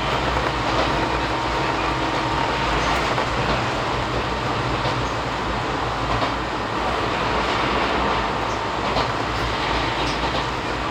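Running noise inside an Izuhakone Railway 3000-series electric train travelling between stations: a steady rumble of wheels on rail with occasional faint clicks.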